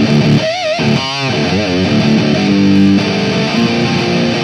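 Electric guitar played through a Soldano SLO 30 Mini valve amp head with a Metal Zone distortion pedal in front, giving a high-gain distorted tone. Held notes waver with wide vibrato from about half a second to two seconds in, followed by steadier sustained notes.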